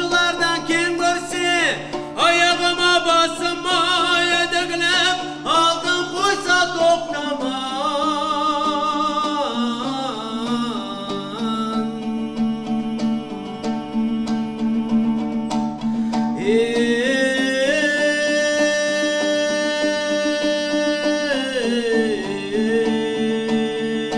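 A man singing a folk song, accompanied by an ensemble of long-necked plucked lutes. In the second half the voice holds long, level notes.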